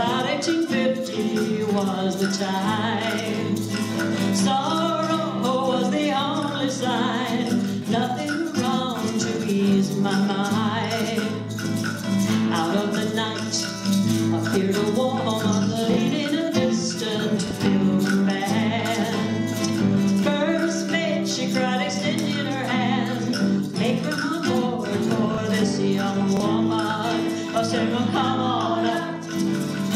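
Acoustic folk song: two acoustic guitars strummed, with women's voices singing and hand percussion keeping time.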